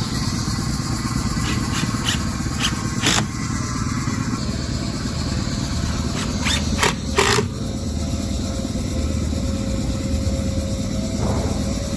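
A steady low engine-like drone with a handful of sharp clicks and knocks, the loudest two about seven seconds in. A faint steady tone joins the drone about four and a half seconds in.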